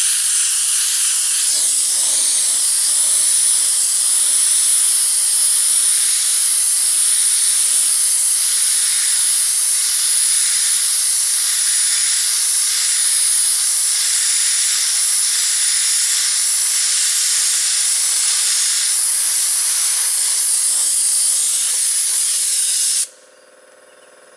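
Pressure-pot dry sandblaster blasting sand with compressed air through its nozzle onto rusty steel: a loud, steady high hiss that cuts off suddenly near the end.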